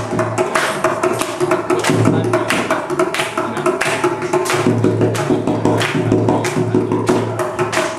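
Carnatic percussion ensemble of mridangam, kanjira, ghatam and morsing playing a tani avartanam: fast, dense drum and clay-pot strokes with a steady pitched drone underneath and a deep hum that comes and goes.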